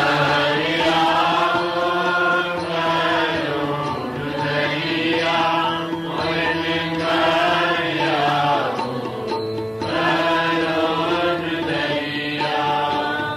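Sikh shabad kirtan: a man singing a devotional hymn in long, held, bending notes over a steady harmonium drone.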